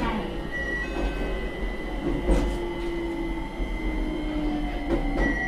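JR Kyushu 817 series electric train running, heard from on board: a steady rumble with thin, steady inverter and motor tones. Three short knocks of the wheels over rail joints come about two and a half seconds apart.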